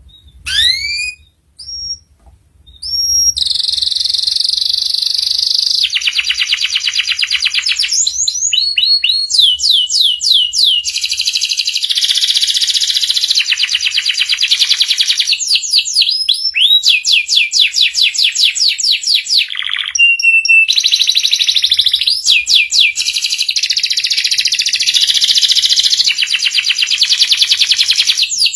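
Domestic canary singing: a few short rising chirps, then about three seconds in a long continuous song of fast trills and rolls with runs of quick upward-sweeping notes.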